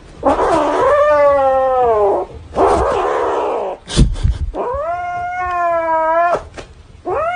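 Angry domestic cat yowling in warning as a hand reaches for the plush toy it is clutching: three long drawn-out yowls, the first sliding down in pitch, with harsh breathy stretches between them. A few sharp clicks or knocks come about four seconds in.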